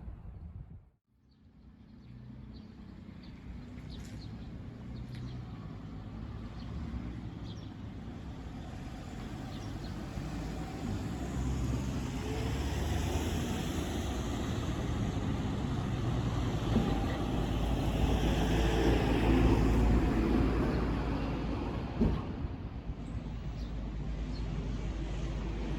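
A large vehicle running and drawing near, its rumble growing steadily louder for about twenty seconds, with a sharp knock about twenty-two seconds in.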